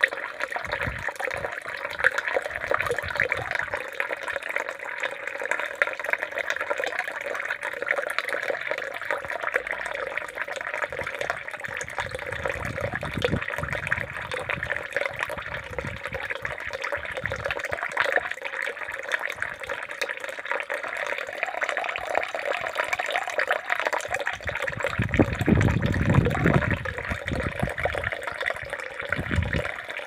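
Steady sound of running water, with a few brief low rumbles, the longest near the end.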